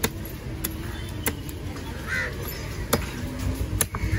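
Cleaver chopping through fish on a wooden log chopping block: about five sharp knocks at uneven intervals, over a low steady background rumble.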